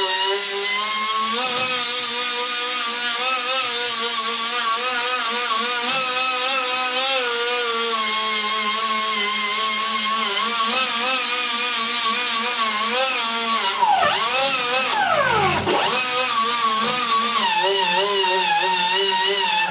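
An angle grinder with a 50 or 60 grit abrasive pad runs steadily under load while sanding down nickel spray weld on a cast-iron cylinder head. Its pitch wavers as the pad is pressed, then sags sharply and recovers twice about three-quarters of the way through. This is the blending step that levels the weld flush with the head.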